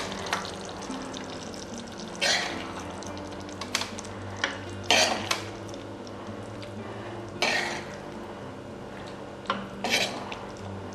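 A spoon scraping and clinking against a cooking pan as keema gravy is dished out, in separate short strokes every second or so, over faint background music.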